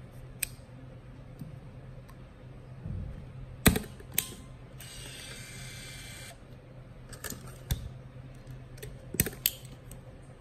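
Hasselblad XPAN II film camera being handled while loading film: a series of sharp clicks and snaps, the loudest a little under four seconds in, and a short motor whir lasting about a second and a half just before the middle.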